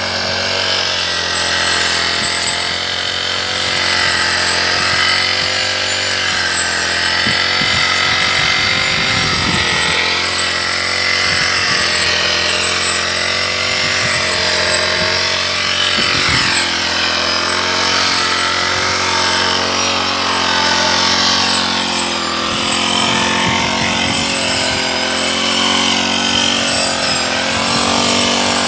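Backpack brush cutter's small engine running steadily, its pitch wavering a little as the blade works through tall grass.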